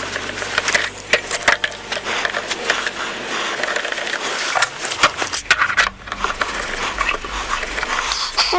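Bar clamps and wooden boards being handled while a glued-up maple panel is clamped: a busy run of clicks, knocks and scrapes.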